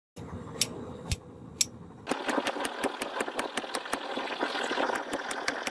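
Three sharp metal strikes about half a second apart. Then from about two seconds in comes a steady machine noise with rapid, even striking about five times a second, like a mechanical hammer working metal.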